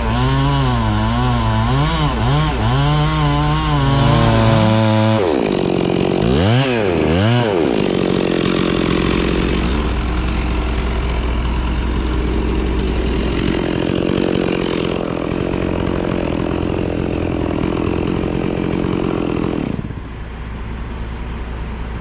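Chainsaw revving up and down, then running steadily under load as it cuts through a section of a large tree trunk, stopping about twenty seconds in.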